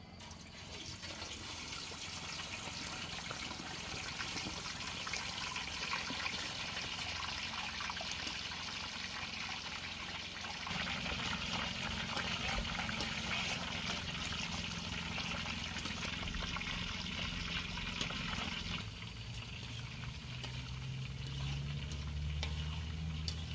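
A whole carp sizzling and crackling in hot oil in a large steel wok, starting as the fish goes in. The sizzle eases a little near the end as a low hum comes in.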